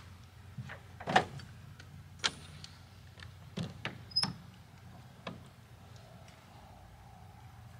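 Pickup truck's camper-shell rear hatch and tailgate being shut and latched: a loud slam about a second in, then a series of knocks and clicks, one with a short high squeak about four seconds in.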